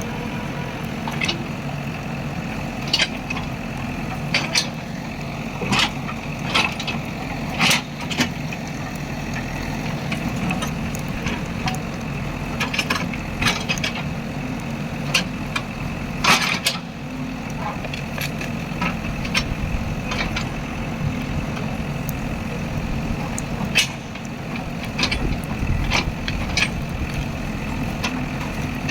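JCB backhoe loader's diesel engine running steadily, with repeated sharp cracks and knocks scattered over it, the loudest at about 8 and 16 seconds in.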